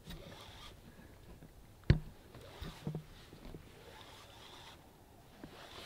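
Quiet background on a small fishing boat, with one sharp knock about two seconds in and a few softer knocks just after.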